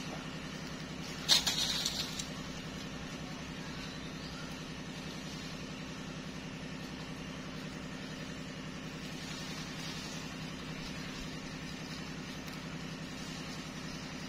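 Steady low mechanical hum like an idling engine. About a second in, a sudden sharp, high sound that dies away in a few quick pulses within a second.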